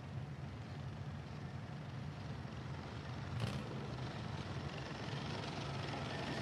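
Engines of compact demolition-derby cars running as they roll onto the dirt track, a steady low rumble that grows slightly louder toward the end. A brief sharp hiss cuts through about three and a half seconds in.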